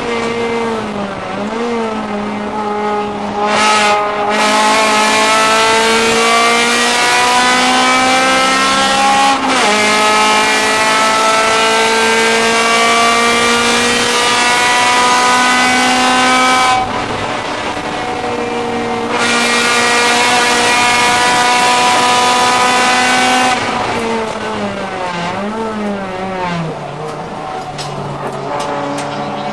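Honda Civic race car's four-cylinder engine heard from inside the cabin, pulling hard with its pitch climbing steadily and dropping sharply at an upshift about a third of the way in. Later it goes quieter as the driver lifts off, and near the end the pitch swoops up and down through downshifts.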